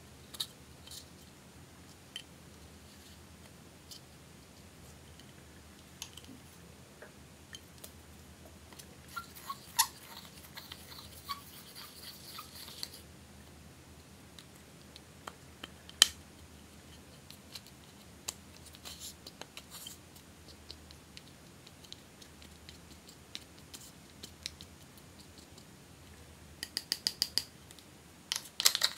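Plastic spatula scraping pressed eyeshadow out of its compact pan and crumbling it: soft scratching with scattered sharp clicks, a denser stretch of scraping about ten seconds in, and a quick run of clicks near the end.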